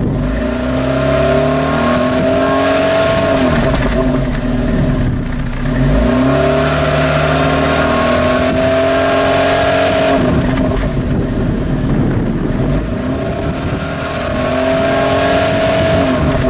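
Exhaust of a Peugeot 1.6-litre 16-valve TU5JP4 petrol engine at the tailpipe, revved and held several times, its pitch swelling and dropping back every few seconds. This is an exhaust check, and the exhaust is judged clean.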